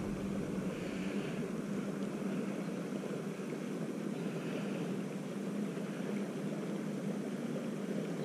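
Steady low hum of a boat motor, one constant pitch over an even rushing noise, with no changes.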